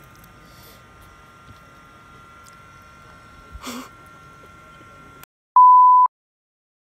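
Colour-bar test tone: a single pure beep at about 1 kHz, lasting about half a second and cutting off abruptly. It is the loudest sound here, coming after several seconds of faint steady background with a thin whistle-like line.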